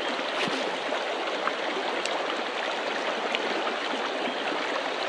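Shallow mountain trout stream running over a riffle: a steady, even rush of water.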